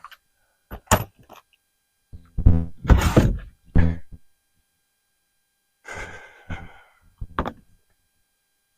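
Irregular thuds, knocks and rattles of things being handled, moved and set down: a few sharp knocks about a second in, a louder clatter in the middle, then a softer scrape and a couple more knocks near the end.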